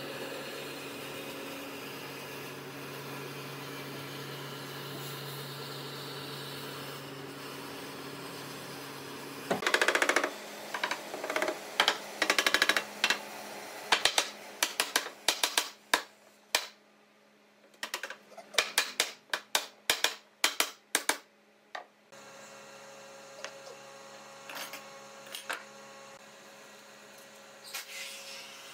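A steady hum, then from about ten seconds in a long run of sharp wooden knocks and clicks in quick clusters as cabinet panels are fitted together by hand. A quieter hum with a few scattered clicks follows for the last several seconds.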